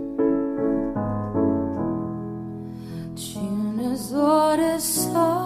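Music: a slow piano ballad. Piano notes and chords play, then a singing voice comes in with a rising line about three and a half seconds in.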